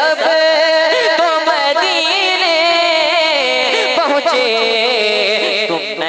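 A young male naat reciter singing a long ornamented phrase into a microphone, the voice wavering and sliding on held notes and sinking lower in pitch near the end.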